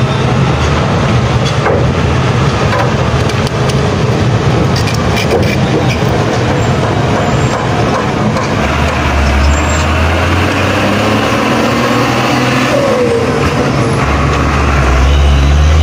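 Mitsubishi Fuso Fighter 220 truck's diesel engine running as the truck drives down off a ship's ramp and passes close by. The low engine rumble swells about nine seconds in and again near the end.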